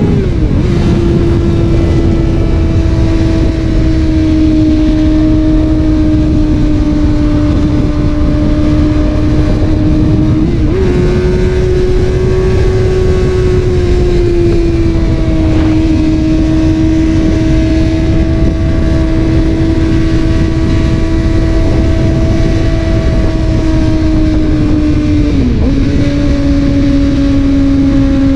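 Suzuki GSX-R600 inline-four running through an M4 slip-on exhaust at moderate, fairly steady revs while riding, the note dipping in pitch about half a second in, around the middle and near the end, and stepping up briefly around ten seconds in. The throttle is held well short of full while the new engine is run in.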